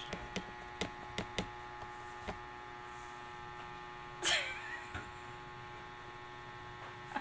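A few light clicks and taps of makeup tools being handled over a steady electrical hum, with one short, sharp sound that falls in pitch about four seconds in.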